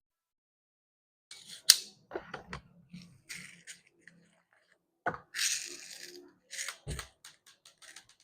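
Handling noise from an Umarex HK MP5 K PDW CO2 airgun: scattered sharp clicks and knocks, two short hisses, and a run of small clicks near the end.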